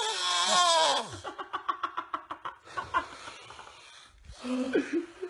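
A person snoring loudly: a long wavering, wheezy snore that ends about a second in, then a fast rattling flutter of about nine pulses a second, and a shorter voiced snore near the end.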